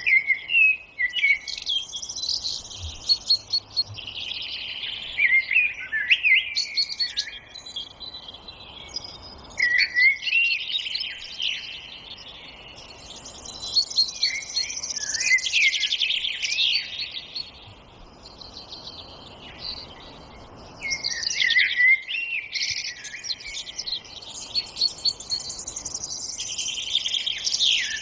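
Several songbirds singing and chirping together in a forest chorus, with rapid trills and short whistled notes coming in busy bouts and quieter spells.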